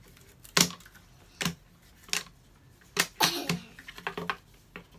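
Puzzle pieces being handled and set down on a table: irregular sharp clicks and taps, spaced about a second apart at first, then a quick cluster of smaller clicks about three seconds in.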